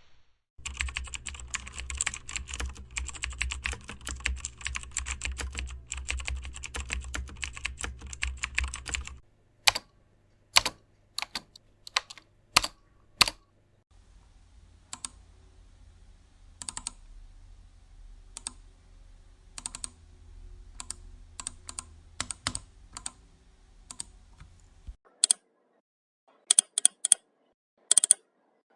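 Computer keyboard typing: a fast, continuous run of keystrokes for about nine seconds, then slower, separate key presses with gaps between them, a few coming in quick pairs and triplets near the end.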